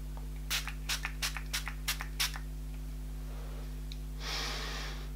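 Pump sprayer of a plastic bottle of Pink Cactus Serum Mist face spray. First comes a quick run of about eight short puffs, then two longer sprays of mist near the end.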